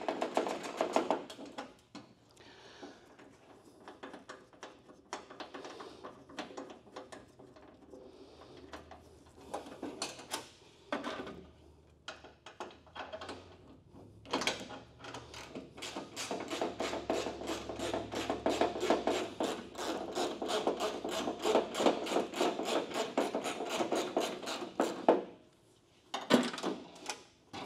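Hand tools working on the car's front-end sheet metal: scattered knocks and rattles, then a long run of rapid clicking from about sixteen to twenty-five seconds in.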